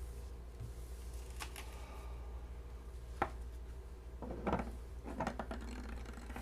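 A few sharp clicks and knocks from a folding knife being handled on a tabletop: one loud single click about halfway through, then a quicker cluster of clicks, over a steady low hum.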